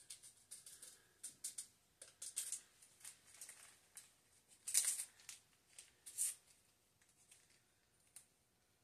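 Stevia sweetener packets being torn open and crinkled in the hands, their contents emptied into a blender jar. It is a faint run of irregular rustles and small rips, the loudest about five and six seconds in.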